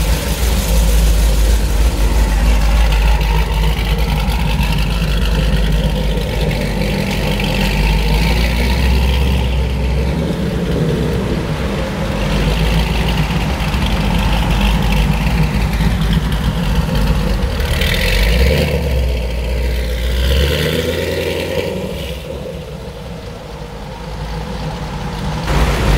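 Supercharged V8 of a Vauxhall VXR8 Bathurst S running, idling with blips of revving, then pulling away and accelerating with rising and falling revs. It fades somewhat as the car moves off and comes back loud near the end.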